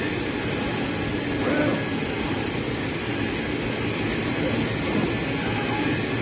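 Fabric cutting machine running with a steady rushing whir.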